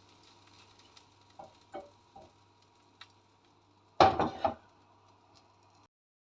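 Kitchen utensil and dish sounds: a few light taps, then a louder clatter about four seconds in, as cooked fish is moved from the pan onto a plate.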